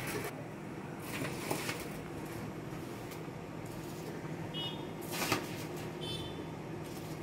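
Water at a rolling boil in a steel kadhai, with a steady low hum underneath, while a steel spoon adds washed rice and split green moong dal, knocking and scraping against the pan a few times, loudest about five seconds in.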